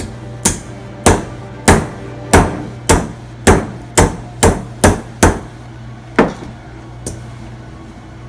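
Hammer blows on metal, about a dozen sharp strikes at roughly two a second, thinning out to a last couple of blows near the end, over a steady low hum. A heated bearing that would not drop onto its seat is being driven on by hammer.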